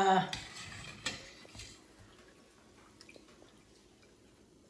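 Metal skimmer scooping fried zeppole out of a pot of hot frying oil: faint sizzling and dripping with a couple of light clinks, dying down to near quiet after about two seconds.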